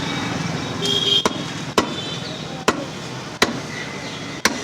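A butcher's chopper striking beef on a chopping block five times, about one chop a second at an uneven pace.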